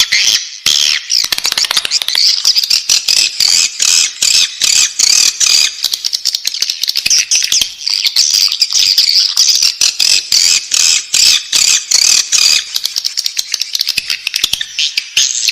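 Swiftlet chicks calling in the nest: a dense, continuous run of rapid, high chirps.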